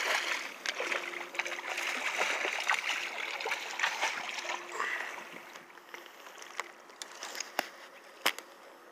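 A large hooked fish thrashing and splashing at the surface close to a kayak, loudest in the first half and then dying down to lighter water sounds. Two sharp clicks come near the end.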